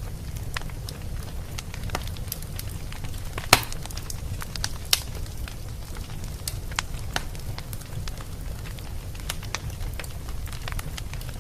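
Wood fire burning in a fireplace, with a steady low rumble and irregular sharp crackles and pops, two louder pops about three and a half and five seconds in.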